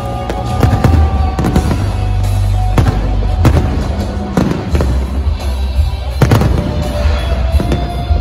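Fireworks display: many sharp bangs from shells bursting, coming irregularly and close together, with music playing underneath.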